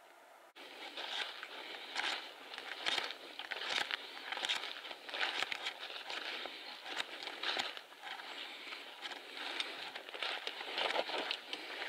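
Footsteps through dry grass, dead weed stalks and fallen leaves, an irregular rustling and crackling of stems underfoot, starting about half a second in.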